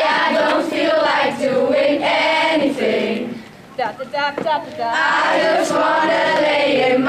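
A large group of children singing together as a chorus, with a short lull of a few clipped syllables around the middle.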